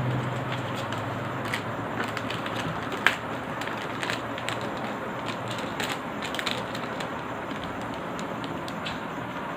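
Plastic packaging crinkling and crackling in irregular clicks as a package is opened, with one sharper snap about three seconds in, over a steady background hiss.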